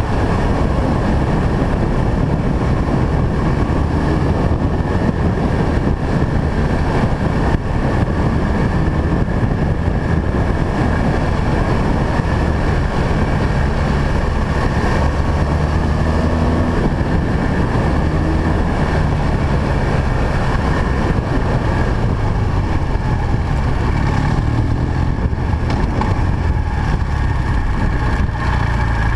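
BMW R1200 GS boxer-twin engine running steadily under way, its note shifting slightly with the throttle, over a dense rush of wind.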